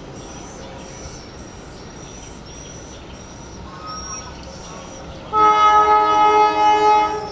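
An approaching diesel locomotive sounds its horn: a loud, steady multi-note blast of nearly two seconds, starting about five seconds in, after a faint short toot about four seconds in. A high chirping repeats about twice a second in the background.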